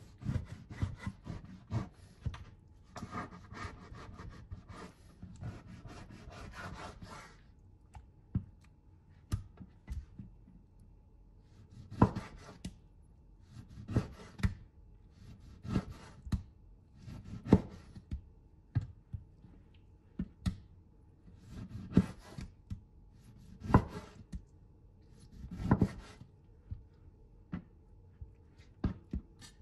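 Knife cutting pork belly on a chopping board. First comes a run of quick sawing strokes through the meat, then single sharp knocks of the blade meeting the board, about one every two seconds.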